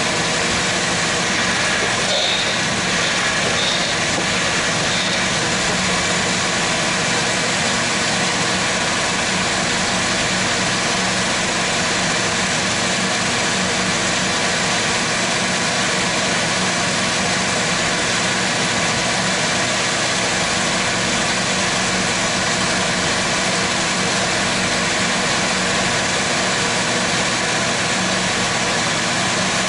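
Chevrolet Silverado 1500's engine idling steadily, heard from under the truck.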